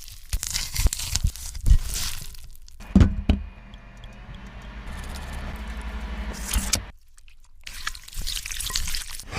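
Kitchen food-preparation sounds: utensils scraping and clattering, with two sharp knocks about three seconds in. A steady hum then runs for about four seconds, stops, and the scraping resumes near the end.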